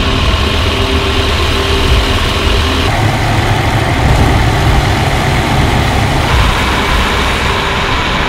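Loud, steady noise of WWII fighter piston engines and rushing air heard from cameras mounted on the aircraft in flight: the F4U-4 Corsair's radial engine and the P-38 Lightning's twin V12s. The sound changes abruptly about three and six seconds in, as it cuts between cameras.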